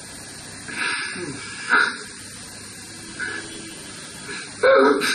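A man breathing heavily into a close microphone, two short breathy bursts over a steady hiss, then a brief vocal sound near the end. He is too overcome with emotion to speak.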